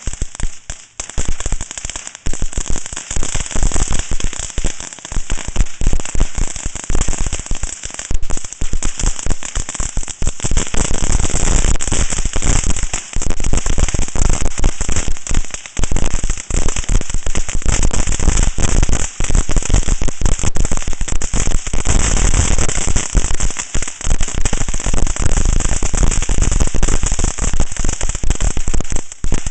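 Crackling fireworks going off: a fast, dense crackle of countless tiny pops, a little sparser in the first couple of seconds and then almost unbroken.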